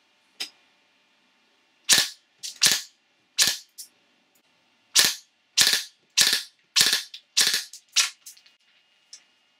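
A 3D-printed FGC-6FA open-bolt gas blowback airsoft replica firing. A light click is followed by about nine sharp shots: three, a short pause, then six evenly spaced about half a second apart. The bolt cycles with each shot and catches on the sear every time, so the open-bolt lockup is working.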